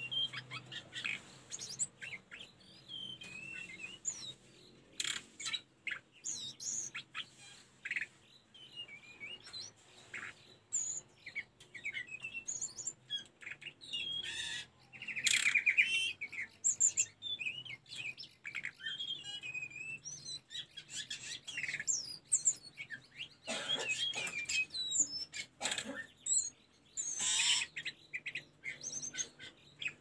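Hill blue flycatcher (tledekan gunung) singing: a fast, varied run of short whistled phrases and chirps. Midway there is a louder buzzy trill, and near the end a few loud scratchy notes.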